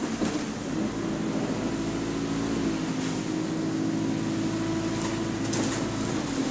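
Go-Ahead London SE103 single-decker bus engine running while the bus drives along, heard from inside the passenger saloon. The engine note is steady, dipping briefly in pitch about half a second in and shifting again near three seconds. A few light clicks or rattles come in the middle and near the end.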